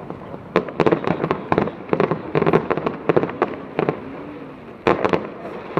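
Fireworks going off in quick volleys of sharp cracks and pops. There is a short lull a little under four seconds in, then another cluster of cracks about five seconds in.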